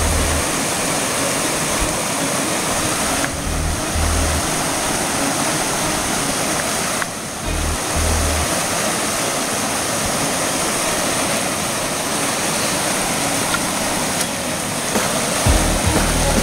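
Steady rush of river water running over rocks and riffles, with background music mixed in.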